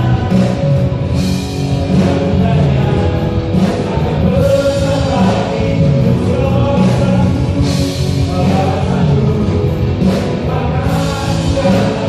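Live worship band with electric and acoustic guitars and keyboards playing an upbeat pop-rock praise song, with singers leading the sung lyrics in Indonesian.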